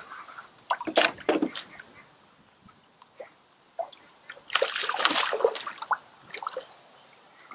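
A hooked carp thrashing in a landing net at the water's edge as it is landed, splashing and sloshing in bursts: a few sharp splashes about a second in, then a longer, louder spell of splashing about halfway through.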